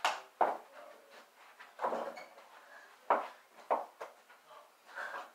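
A small toy basketball bouncing off the floor and the over-the-door mini hoop: about six sharp knocks spread over five seconds, two of them coming in quick pairs.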